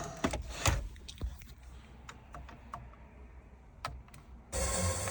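A series of light, scattered clicks from buttons being pressed on the minivan's factory radio/CD head unit, then a short burst of noise near the end.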